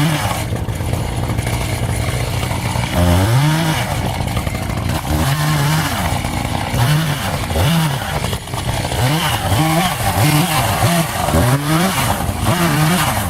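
Echo two-stroke chainsaw whose throttle is opened and released over and over, the engine revving up and dropping back about once a second in the latter half.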